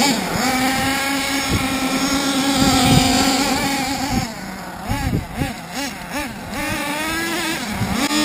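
Small nitro engine of a Hot Bodies Lightning GTX2 RC monster truck running at high, steady revs, then revving up and down in a string of quick throttle blips from about halfway.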